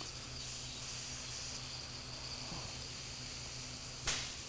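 Hot-air plastic welder blowing a steady hiss from its nozzle, its air flow and heat turned down low, as polypropylene rod is welded into a headlight tab. A faint steady hum runs underneath, and a single click comes near the end.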